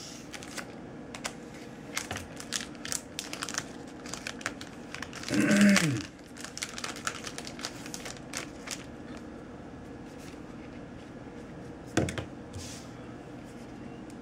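Clear plastic wrapper of a credit-card folding knife crinkling and rustling as it is handled, in many small crackles. A brief louder pitched sound comes about five seconds in, and a single knock near the end.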